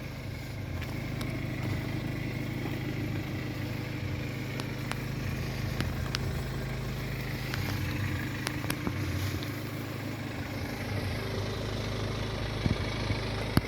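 A car engine idling steadily, a low even hum, with a few faint light clicks over it.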